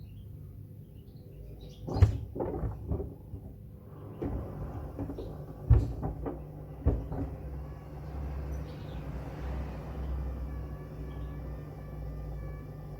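Hoover washing machine running with pieces of wood in its drum: several loud knocks as the wood bangs around inside, over the steady low hum of the machine. After about eight seconds the knocking stops and the drum runs on with an even rumble.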